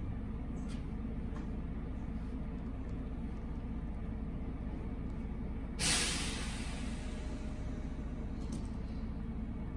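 Steady hum of an industrial sewing machine's electric motor left running idle. About six seconds in, a sudden hiss starts and fades over a second or so.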